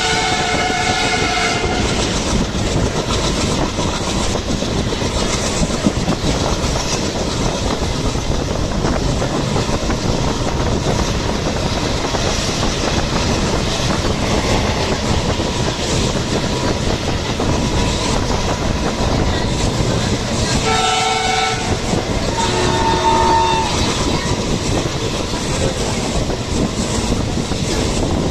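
A train running on rails: a steady rumble with wheel clatter. A multi-tone train horn ends about two seconds in, and two short horn blasts sound near the end.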